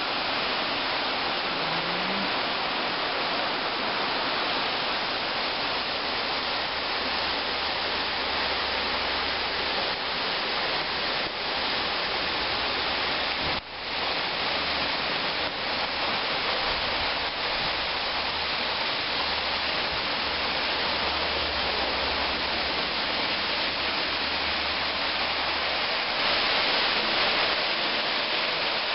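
Water jets of an outdoor fountain splashing into their pool: a steady rushing noise that briefly drops out about halfway through.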